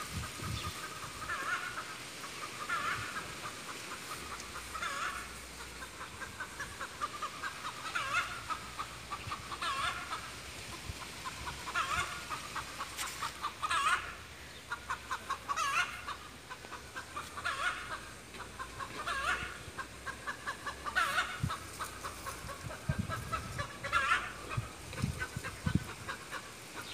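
A small flock of chickens clucking, with short calls repeating every second or two.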